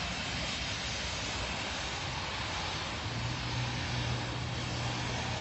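A steady rushing noise, with a low steady hum joining about three seconds in.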